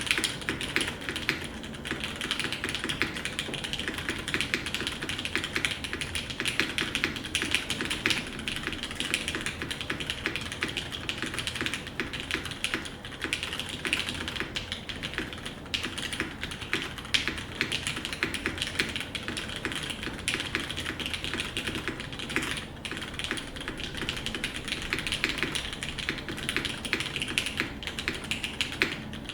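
Continuous fast typing on a custom mechanical keyboard: lubed linear switches in an aluminium-plated case with GMK doubleshot ABS keycaps, a steady stream of dense key clacks with the occasional louder stabilised key.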